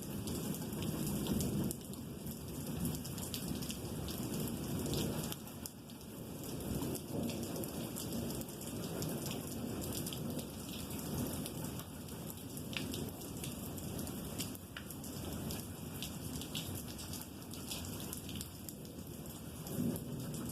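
Steady heavy rain falling, with many sharp drop ticks close by, over a low rumble of rolling thunder that swells and fades.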